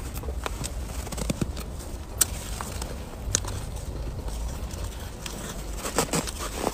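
Fresh snow crunching as it is chewed: irregular crisp crunches and clicks, a sharp one about two seconds in, another a second later, and a cluster near the end, over a low steady rumble.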